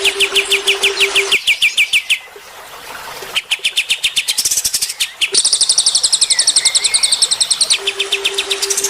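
Edited bird-song training track of cililin and kapas tembak songbirds: fast runs of high, evenly repeated chirps, about eight a second, broken off by abrupt cuts. A different, higher rapid trilling phrase takes over in the middle. A steady low pulsing tone sits under the first second and a half.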